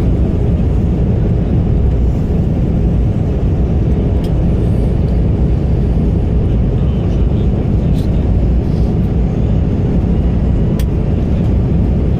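Steady cabin noise inside an Airbus A220-300 airliner: an even, low rumble of engines and airflow with no change in level. A few faint ticks can be heard over it.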